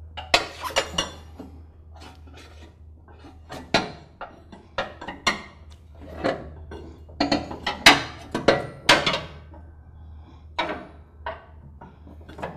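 Mower-deck belt guard being fitted back into place by hand: irregular metallic clinks, knocks and rubbing of the guard and deck hardware, busiest about eight seconds in.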